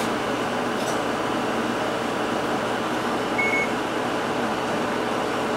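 Inside a standing Isuzu Erga Hybrid city bus: steady cabin hum from the idling drivetrain and ventilation. One short, high beep sounds about three and a half seconds in.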